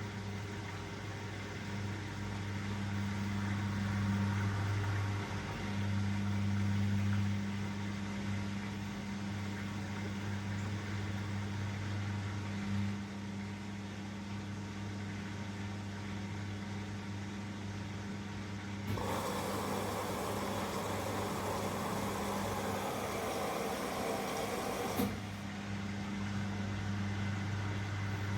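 Elin washing machine running with a steady low hum. About two-thirds of the way in, a rush of water comes in for about six seconds and cuts off sharply.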